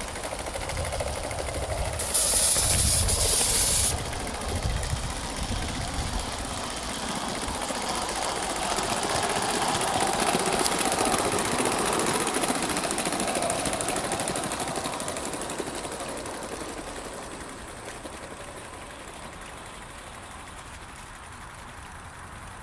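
Gauge one live-steam LMS tank locomotive with its wagons running along a garden railway, growing louder as it passes and then fading as it moves away. A loud hiss of steam for about two seconds near the start.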